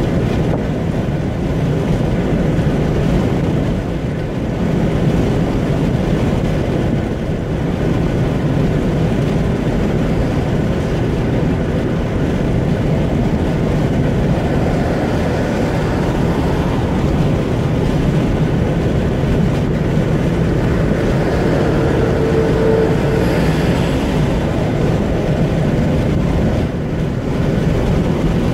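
Steady road and wind noise heard inside a car cruising on a motorway: tyres on the road surface and engine running at a constant speed.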